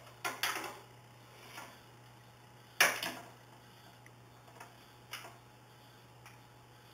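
Curling iron being handled while hair is wound onto it: a few sharp clicks and ticks at irregular intervals, the loudest about three seconds in.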